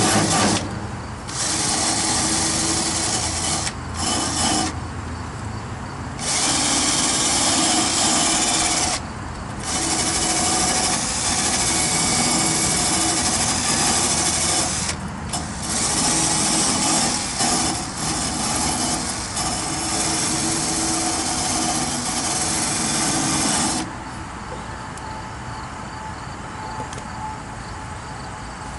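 Handheld power tool running in repeated bursts with short pauses, stopping about 24 seconds in.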